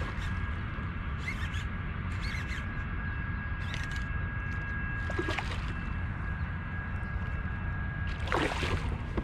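Hooked redfish thrashing at the surface beside a kayak: a handful of short splashes, the loudest near the end as the fish comes close, over a steady low rumble and a thin steady whine that stops about seven seconds in.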